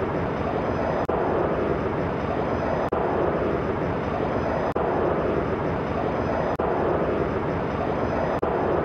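Jet aircraft engine sound effect: a steady rushing noise played as a loop, with a brief dropout about every two seconds where the loop repeats.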